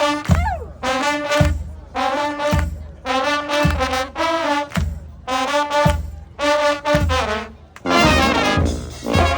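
Street brass band playing, trombones and trumpets in short punchy phrases over low drum thumps about once a second. Just after the start a horn slides down in pitch, and near the end the band swells into a fuller, noisier passage.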